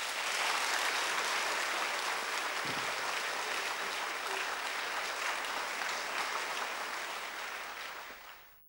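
Audience applause, a steady clapping that dies away quickly at the very end.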